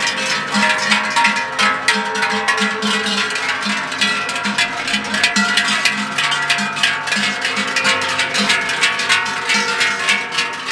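Background music: a lively instrumental tune on plucked strings over a steady bass beat.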